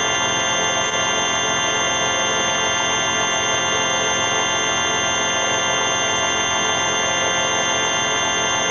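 Electronic sound effect: a dense, steady buzzing drone of many stacked tones, unchanging throughout, with a faint repeating warble in the middle range.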